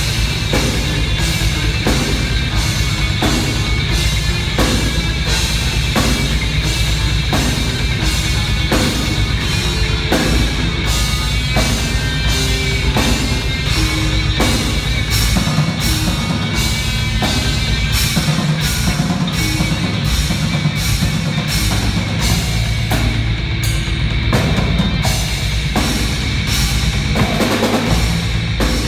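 A live rock band playing loudly: distorted electric guitars and bass over a drum kit keeping a steady beat of regular hits.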